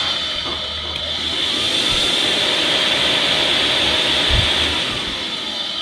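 Diesel heater's fan motor running on 12 volts applied directly, a steady high-pitched whine over rushing air. The fan bearings are noisy and need replacing.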